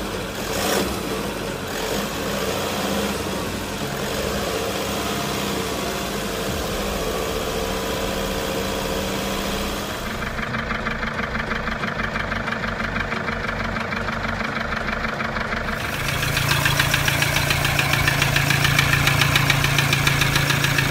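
Toyota D-4D four-cylinder turbodiesel engine idling. From about halfway through it has a rapid, even knocking, which gets louder and deeper in the last few seconds.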